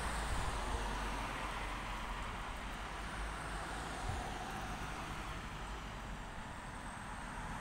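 Road traffic: cars passing on the street, a steady hiss of tyre and engine noise that eases slightly toward the end.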